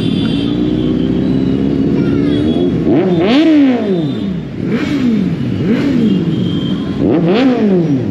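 Motorcycle engine revving at low speed. It runs steadily, climbs sharply about three seconds in, then gives several quick throttle blips, each rising and falling in pitch.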